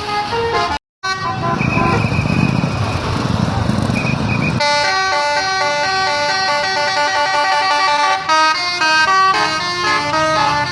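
A bus's 'telolet' multi-tone musical horn playing a quick tune of changing notes. It cuts out for a moment about a second in, sounds over engine and street noise for a few seconds, then from about halfway the tune rings out clearly on its own.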